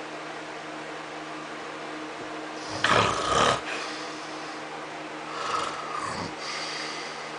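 A sleeping man snoring: one loud snore about three seconds in and a softer one about three seconds later, over a steady low hum.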